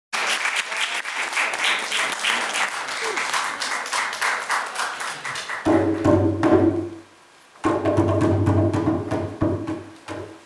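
Rapid percussion strokes for the first five seconds, then a low held note with light tapping over it that breaks off briefly and comes back.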